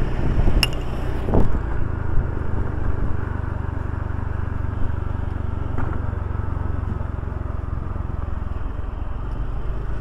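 Steady engine and road noise of a vehicle travelling along a road, heard from on board, with a couple of sharp knocks in the first two seconds.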